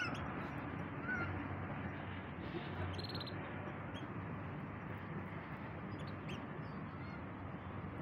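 A caged canary gives a few short chirps over steady background hiss: one short note about a second in and a brief quick trill about three seconds in.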